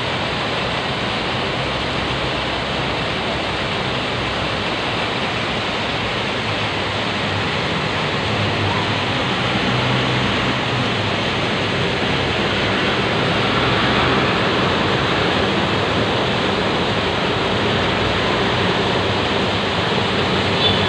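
Heavy rain: a steady rushing hiss of downpour and running water.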